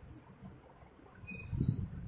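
Hand squeezing and kneading a lump of damp clay dough, a soft, low squishing that starts about a second in.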